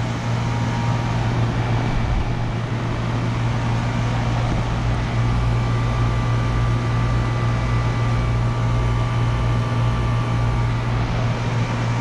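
Outdoor central air conditioner condensing unit running: a steady compressor hum under the even rush of the condenser fan.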